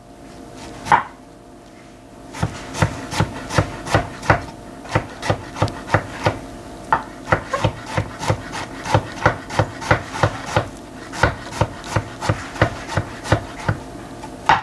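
Kitchen knife slicing peeled peaches thin on a wooden cutting board: one tap of the blade on the wood, then from a couple of seconds in a steady run of sharp knocks, about three a second.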